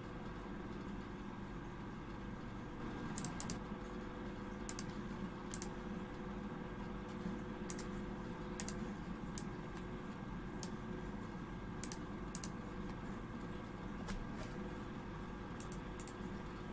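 Sparse, irregular clicks of a computer keyboard and mouse, over a dozen, starting about three seconds in, over a faint steady hum.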